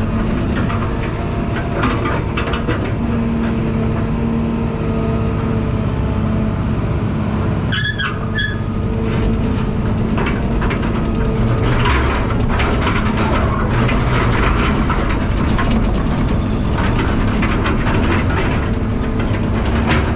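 Diesel engine of heavy farm equipment running steadily, with metal clanking and rattling throughout and a short squeal about eight seconds in.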